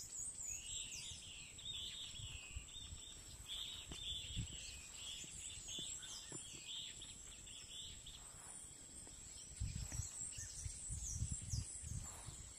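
Birds chirping and whistling over a steady high-pitched insect drone, with low rumbling bumps that come more often toward the end.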